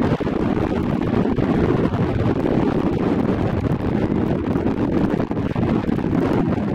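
Wind buffeting the camera's microphone: a steady, low, fluctuating rumble.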